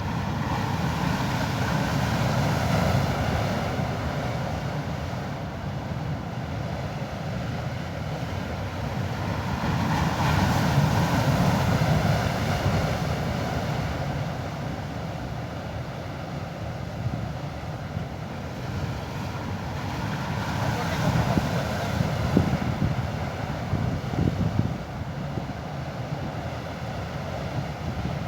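Sea waves surging and washing against the rocks of a harbour breakwater, swelling and easing every several seconds, with wind gusting on the microphone.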